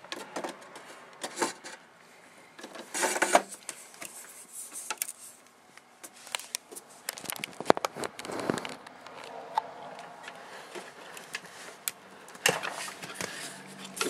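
Hands handling parts inside a 2008 Mac Pro's aluminium case: scattered clicks, knocks and scrapes, with louder rustling scrapes about three seconds in and again around eight seconds in, and a sharp knock near the end.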